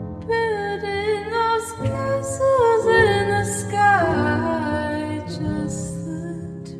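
Slowed-down, echo-heavy soul-pop ballad: a woman's voice sings a gliding, ornamented run without clear words over sustained chords, then the melody drops away about halfway through, leaving the chords.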